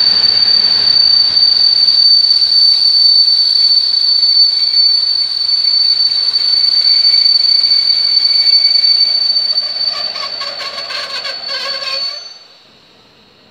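Passenger coaches' brakes squealing in one high steady tone as a locomotive-hauled train slows along the platform. Clattering squeaks come near the end, and the sound cuts off suddenly as the train comes to a stop.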